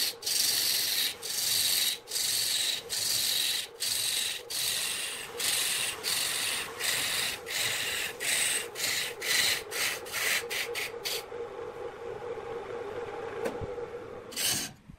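A gouge cutting a spinning wood blank on a lathe, taking off shavings in a run of short strokes about two a second that quicken and shorten. About three-quarters of the way through, the cutting eases to a lighter, steady scrape over the lathe's hum, with one last stroke near the end.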